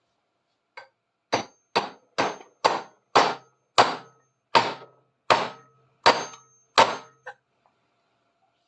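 About a dozen hammer blows on a large steel adjustable wrench, roughly two a second, each leaving a short metallic ring, to knock a seized part loose. The first and last blows are lighter.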